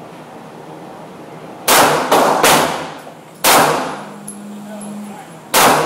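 Beretta 92FS Inox 9mm pistol firing five shots: a quick string of three about a second and a half in, then a single shot near the middle and another near the end. Each is a sharp crack followed by a short echo.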